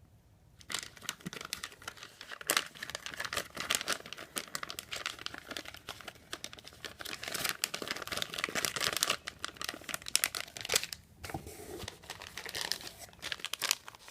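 Plastic packaging crinkling and rustling as it is handled, starting about a second in with a short lull near the end.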